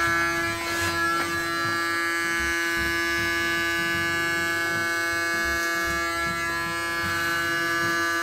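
Electric hair clippers running with a steady buzz while trimming short hair at the back of the head and around the ear.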